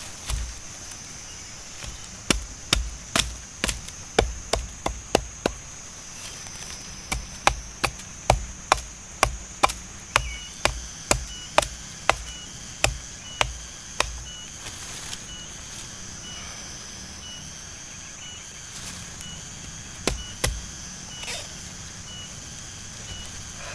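A coconut being chopped open, hit with sharp strokes about twice a second in two runs, a pause, then two or three more strokes near the end.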